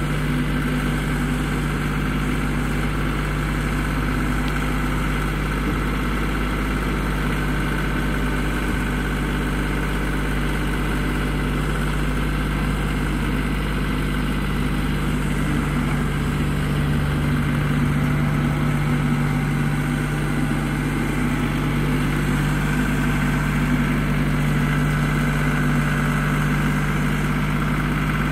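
LS G3033H compact tractor's diesel engine running steadily at a constant speed while the tractor pushes a shed with its front loader bucket.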